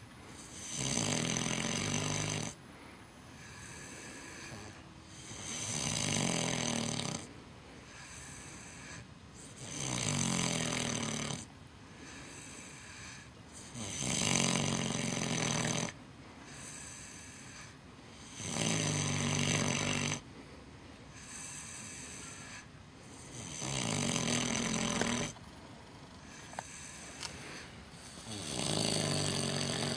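A micro pig snoring loudly in its sleep: seven loud snores, each about two seconds long, come every four to five seconds, with a softer breath between them.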